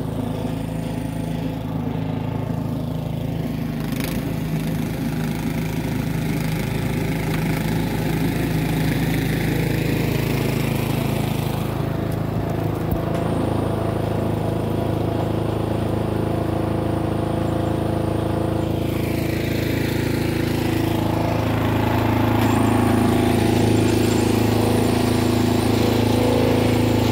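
A small engine running steadily, getting somewhat louder near the end.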